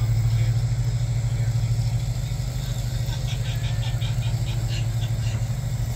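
An engine idling steadily: a low, even hum with a fast pulse.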